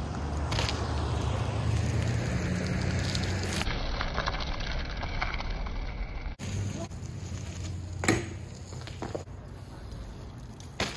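BMX street riding on concrete: tyres rolling and crackling over gritty pavement, with a few sharp knocks of the bike on concrete, the loudest about eight seconds in.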